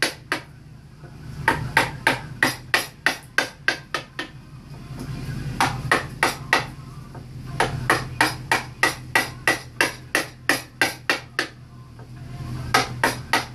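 Wooden mallet tapping a carving chisel into a wooden relief panel: quick, sharp strikes about four or five a second, in runs with short pauses between them.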